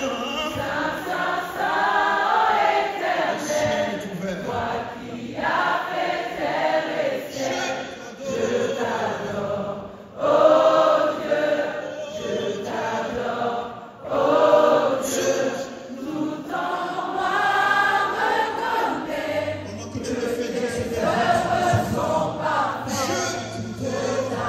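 Live gospel worship song sung by a group of voices in long, wavering held phrases, with two short breaks about ten and fourteen seconds in before louder phrases come back.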